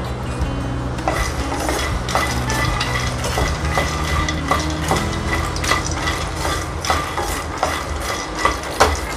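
Wooden spatula stirring dry-roasting makhana (popped lotus seeds) around a non-stick kadhai: a steady run of light scrapes and taps as the nuts are turned, starting about a second in.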